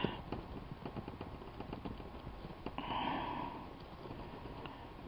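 Faint small taps and rubbing of a metal ball stylus pressing and cupping a punched paper flower against a craft mat, with a soft hiss about three seconds in.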